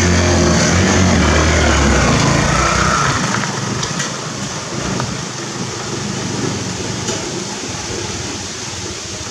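Motorcycle-sidecar tricycle's small engine running as it climbs a rough dirt trail. It is loud with a steady low hum for the first few seconds, then quieter and rougher as it moves away.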